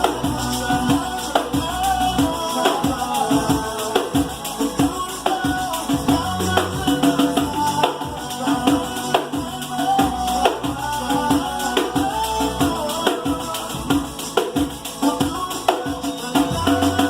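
Pandeiro, the Brazilian jingled frame drum, played in a steady, fast rhythm: constant jingle strokes with low drumhead pulses, over music with a melody line.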